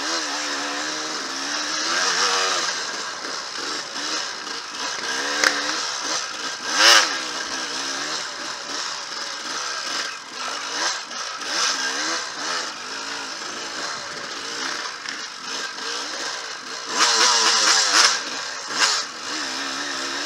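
Dirt bike engine running on a trail ride, its pitch rising and falling constantly with the throttle, with short louder bursts about seven seconds in and again near the end.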